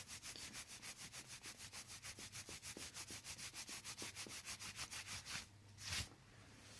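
Faint, rapid, even rubbing strokes, about seven a second, stopping about five and a half seconds in. A single short rustle follows near the end.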